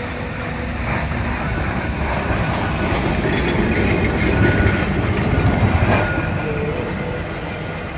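Blackpool heritage open-topped Boat tram No. 600 passing close by on the promenade track: wheels running on the rails with a steady rumble that swells to its loudest about five seconds in as the car goes by, with a couple of sharp clicks.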